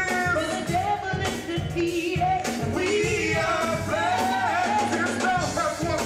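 A church youth vocal group singing a gospel song into microphones, backed by live instruments with a steady beat.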